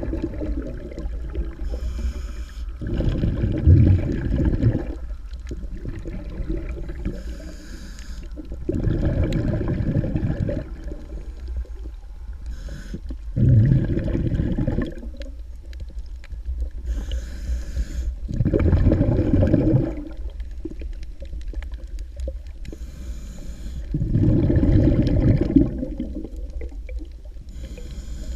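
A snorkeler breathing slowly through a snorkel, heard underwater: about five breaths, one every five seconds or so, each a short airy hiss followed by a louder, low bubbling gurgle, over a steady low underwater rumble.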